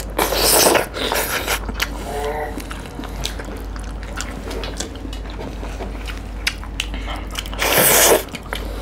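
Close-up eating sounds of people eating fish and rice by hand: wet chewing and lip smacking with many small clicks. Two louder, longer wet sucking noises come just after the start and near the end.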